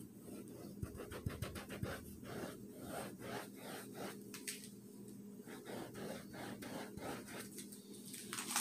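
Paintbrush scratching across canvas in a quick, irregular series of short strokes as oil paint is laid on, close to the microphone, over a faint steady hum.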